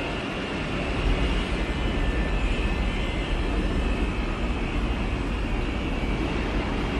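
R62A subway train approaching through the tunnel: a steady rumble that grows louder about a second in, with a faint high whine over it.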